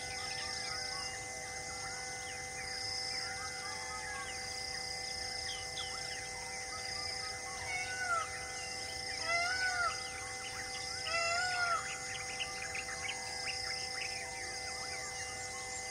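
Forest birds calling: many short chirps throughout, with several louder arched whistled calls in the middle. Under them runs a high insect buzz, repeated in short pulses.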